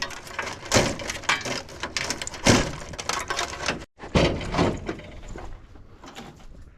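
Clanks, knocks and rattles of a gas heater's sheet-metal parts being handled and pulled apart during a tear-down, with several sharp knocks, the loudest about two and a half seconds in. The sound cuts out for a moment just before four seconds, then the handling goes on more quietly.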